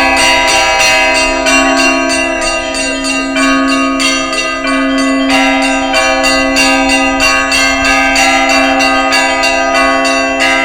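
Russian Orthodox church bells rung as an Easter peal: several small bells struck in a rapid, continuous pattern over a lower, larger bell sounding about once a second, all ringing on together.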